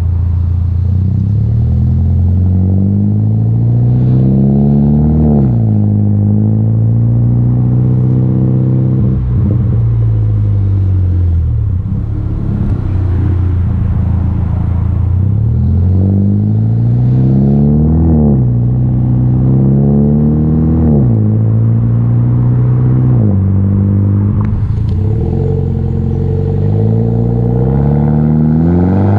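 Mini Cooper S F56's 2.0-litre turbocharged four-cylinder through a straight-pipe exhaust, pulling up through the revs several times, each climb ending in a sudden drop in pitch at an upshift. There are pops and crackles in between the pulls.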